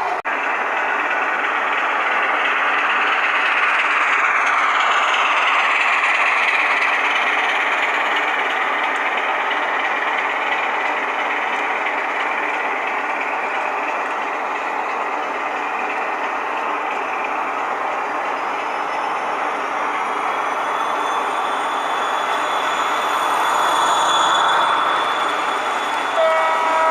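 Model diesel locomotive running on a layout, its DCC sound decoder playing diesel engine sound through a small onboard speaker, mixed with the hiss of wheels on track. A two-tone horn sounds near the end.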